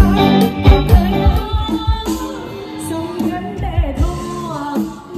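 Live band music with a singer: a steady drum beat under a sung melody. The drums drop out about two seconds in, leaving the wavering voice over quieter backing.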